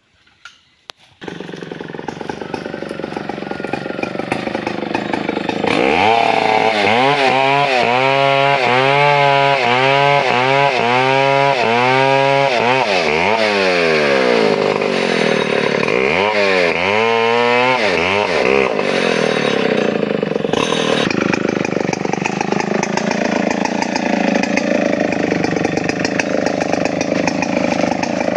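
Two-stroke chainsaw starting up about a second in and running, then held at high speed cutting through a felled coconut palm trunk, its pitch rising and falling in an even wobble about once a second before settling into a steadier high run.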